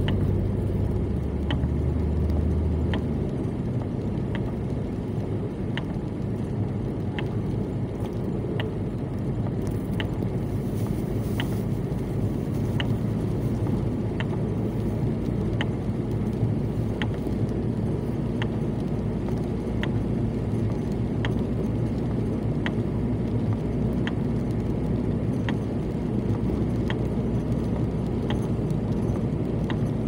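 A car driving on a wet road, heard from inside the cabin: steady engine and tyre rumble, with a faint tick that repeats evenly about every second and a half.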